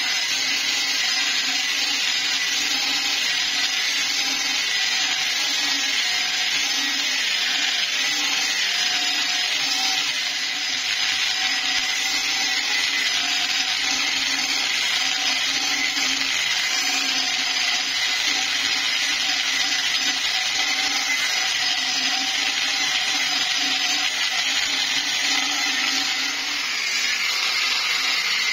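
Angle grinder with a thin cut-off disc cutting through a flat steel plate: a steady, loud, high-pitched grinding of the disc biting into the metal.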